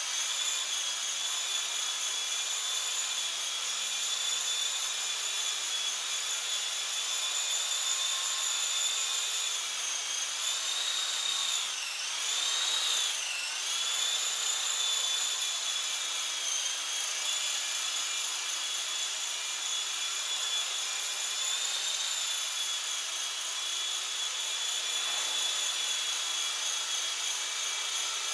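Small Esky electric radio-controlled helicopter hovering: a steady high motor-and-rotor whine whose pitch dips and recovers briefly about halfway through.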